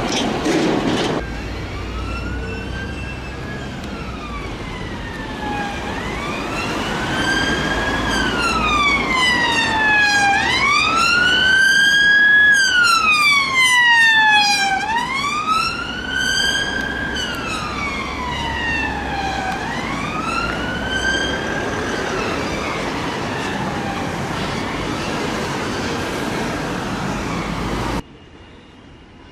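Police car siren on a slow wail, its pitch rising and falling about every three seconds, growing louder as the car approaches, loudest about halfway through as it passes close, then fading. Low traffic rumble underneath; the sound cuts off abruptly near the end.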